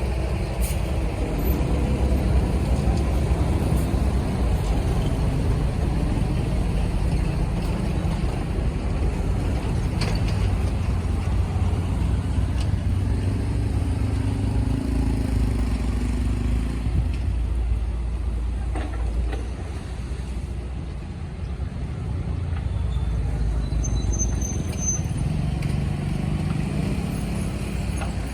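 Heavy excavator's diesel engine running with a steady low rumble, easing off for a moment about two thirds through before picking up again.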